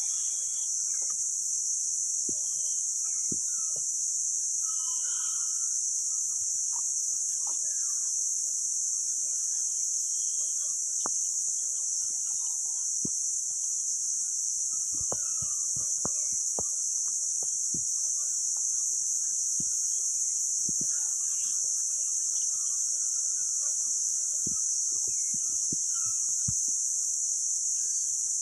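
A steady, high-pitched chorus of insects drones throughout, with scattered sharp crackles and snaps from dry leaf litter and twigs and a few short bird chirps.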